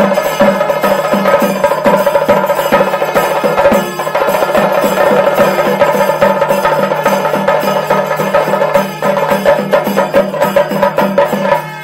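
Chenda drums played fast with sticks in a pandi melam ensemble, about three or four strong beats a second under dense rolling strokes, with a kuzhal (double-reed pipe) holding a steady note over them and hand cymbals. The playing breaks off just before the end.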